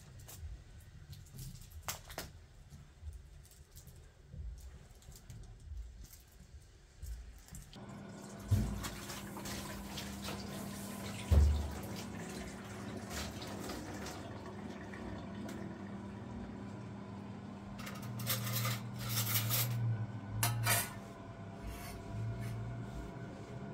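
After several seconds of quiet room tone, water runs from a tap into a metal kitchen sink, with a couple of sharp knocks against the sink and brief louder bursts of noise near the end.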